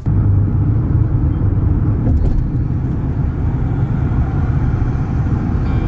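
A loud, steady low rumble that starts abruptly.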